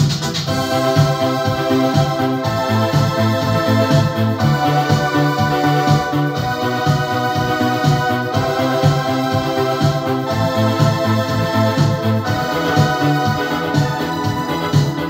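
Yamaha PSR-S750 arranger keyboard played with both hands: held chords that change every couple of seconds over a pulsing bass line.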